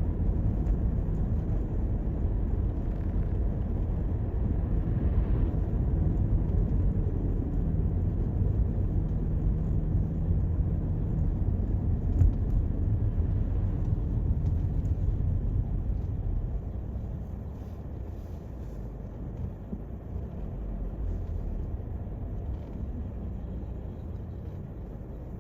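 Toyota Corolla on the road, a steady low rumble of tyres and engine, which turns quieter about two-thirds of the way through.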